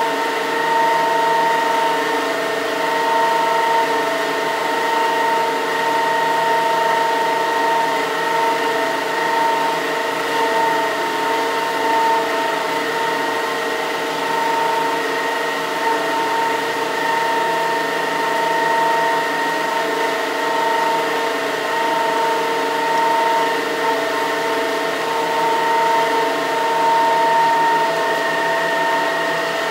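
Single-jet vertical-axis Pelton turbine with its directly coupled permanent-magnet generator running steadily under water pressure. A constant whine of several steady tones sits over an even rushing noise.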